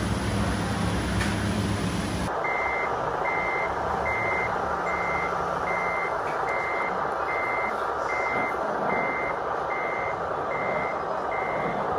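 A model truck's reversing alarm from its sound module, sounding a dozen evenly spaced high beeps, about one every 0.8 seconds, over steady running noise. For the first two seconds only a low humming motor noise is heard, before the sound changes abruptly.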